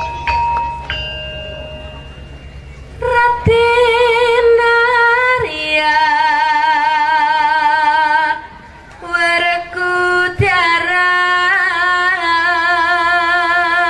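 Intro music: a few bell-like chime notes ring out, then about three seconds in a woman's voice starts singing long, held notes with vibrato, pausing briefly partway through before carrying on.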